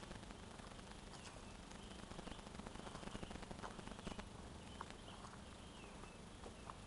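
Faint irregular footsteps and taps on a dirt woodland trail as a hiker walks, with a few faint bird chirps in the background.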